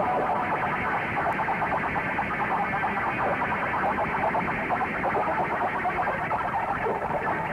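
Dense, distorted experimental soundtrack: a chaotic, fast-flickering wash of processed sound with no clear beat or melody.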